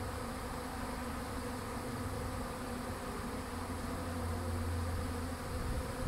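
Honey bee swarm buzzing: the steady drone of many bees flying around a hive entrance, with a deeper hum growing louder for a couple of seconds past the middle.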